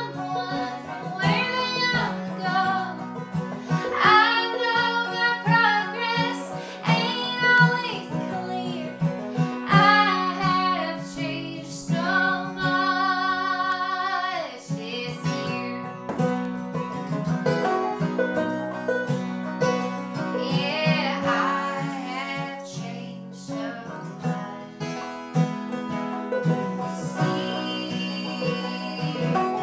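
A woman sings over a strummed acoustic guitar and a banjo, holding one long note about halfway through; near the end a man's voice sings with her.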